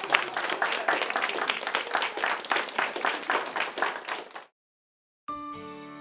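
A small group applauding by hand-clapping, the clapping dying away about four and a half seconds in. After a brief silence, soft background music begins near the end.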